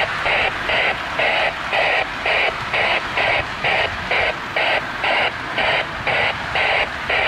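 Lionel MPC O-scale model locomotive running on the layout, its sound unit giving an even chuffing rhythm a little over two beats a second over a steady running hum.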